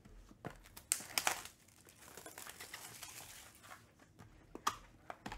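A Panini Spectra football card box handled and opened: cardboard knocks and crinkling of its packaging, with a few sharp clicks, loudest about a second in.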